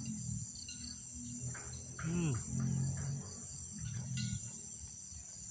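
Steady high-pitched chirring of insects in the pond-side grass, with a faint low murmur beneath.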